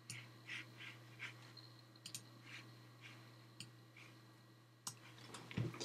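Faint clicks of a computer mouse, four sharp ones spread a second or two apart, with a few softer breathy sounds between them over a low steady hum.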